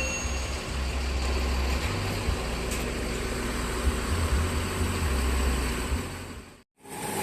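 Intercity bus engine running, heard from inside the cabin as a steady low rumble. It fades out and cuts off about six and a half seconds in.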